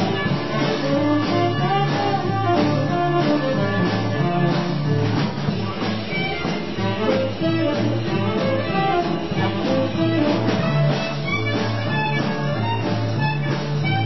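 Small jazz band playing an instrumental, with a plucked double bass and drums carrying the beat underneath horns and piano.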